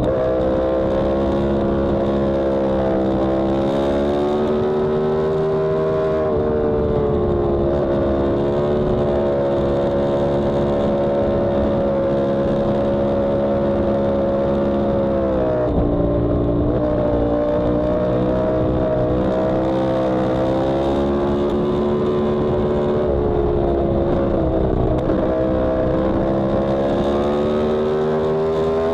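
Yamaha R1M's crossplane inline-four engine at speed, heard from a camera mounted on the bike. The engine note climbs and holds, drops sharply about halfway through, then climbs again.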